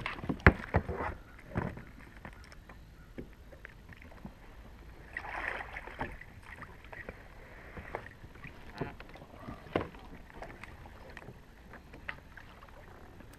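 Knocks and bumps on a plastic kayak hull: a few sharp knocks in the first two seconds, a short rushing noise about five seconds in, then scattered light clicks.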